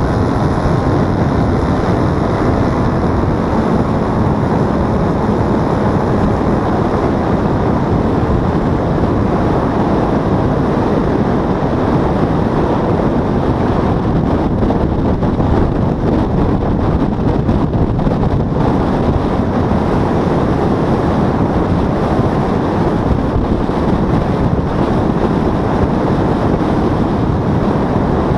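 Paramotor engine and propeller running steadily in flight, mixed with heavy wind buffeting on the microphone.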